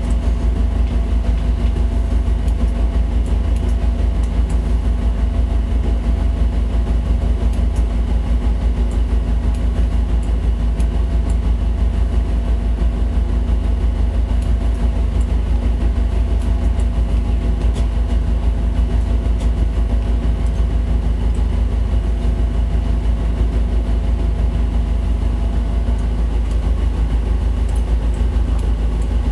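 Tugboat's diesel engines running steadily: a loud, deep, even drone with a fast pulse and a few steady tones over it.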